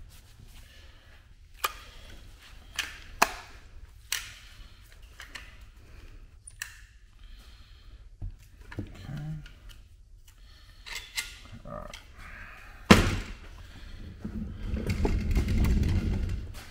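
Scattered sharp clicks and light knocks from a caulking gun being worked and handled on a worktable, with one louder thunk about 13 seconds in, followed by a couple of seconds of rustling, shuffling noise.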